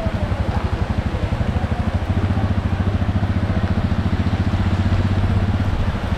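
A motor vehicle engine running steadily with a fast, even pulsing, under a steady hiss.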